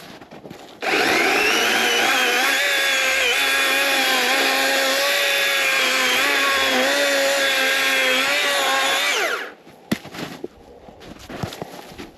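Master Force 80-volt battery chainsaw's electric motor whirring at full speed with the chain cutting through wood. It starts abruptly about a second in, its pitch dipping and wavering under load, then winds down with a falling whine near the end. A sharp click follows shortly after.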